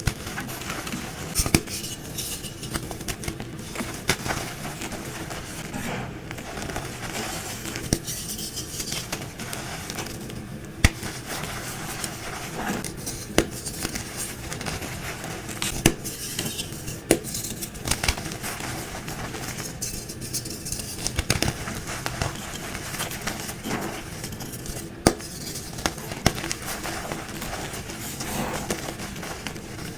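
Dyed gym chalk blocks being crushed and crumbled: continuous crunching and crackling, with a sharp snap every couple of seconds as a chunk breaks.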